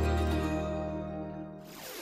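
Final held chord of a short intro jingle, fading out, followed near the end by a brief swoosh as the logo gives way to the title card.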